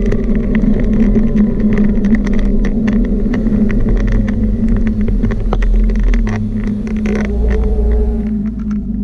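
Steady motor hum of a small motorised vehicle carrying the camera, with many sharp clicks and rattles as it rolls over paving and floor tiles; the pitch falls and the sound eases near the end as it slows.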